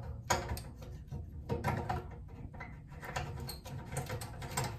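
Drain nut being screwed on by hand onto the threads of a stainless steel sink's drain strainer: scattered small clicks and scrapes.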